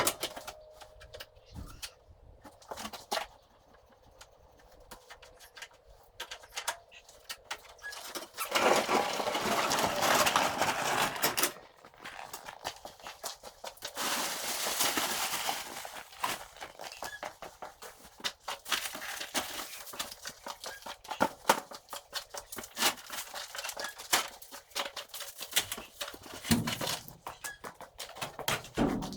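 Scattered knocks, clicks and rustling of objects being handled and moved, with two spells of steadier scraping noise of a few seconds each, the first about eight seconds in.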